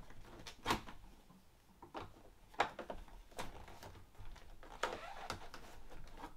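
A few light, separate clicks and taps of small parts and a hand tool being handled against the blind frame on a door.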